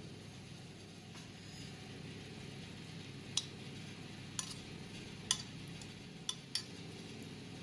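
Kitchen utensils clinking: five short, sharp clinks about a second apart, the last two close together, over a steady low hum.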